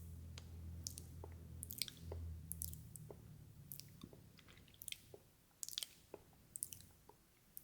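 Close-miked wet mouth sounds: irregular smacks and tongue clicks, like slow chewing. A low hum underneath stops about three seconds in.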